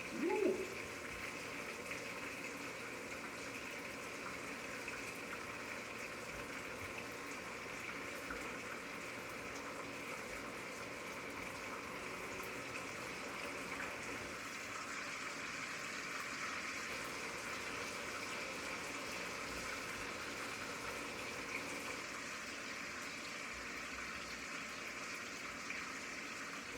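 Food cooking on the stove: a steady hiss with faint crackles.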